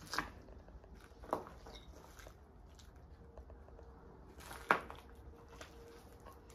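Three sharp cracks, about a second in, just after, and the loudest near the end, with faint scattered ticks over a low steady hum.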